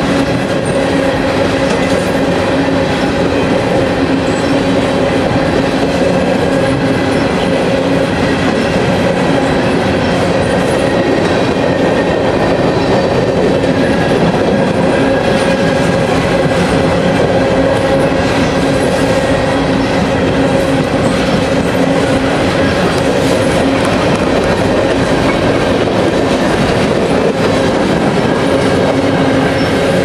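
Freight train's open-top hopper cars rolling steadily past, wheels clattering over rail joints and switches, with steady tones held over the clatter.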